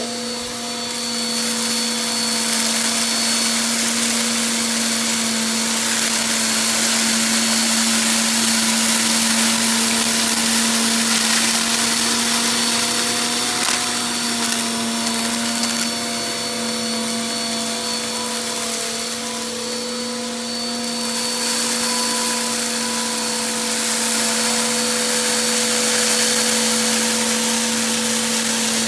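Shark vacuum cleaner running steadily, a motor whine over rushing air, as it sucks up fine and crunchy dirt; the sound dips slightly a little past the middle, then comes back up.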